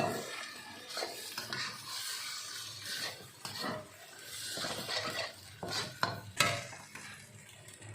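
Char kway teow noodles being stir-fried in a pan: a spatula stirring and scraping with repeated irregular knocks against the pan over a light sizzle. There is a sharper clank about six and a half seconds in.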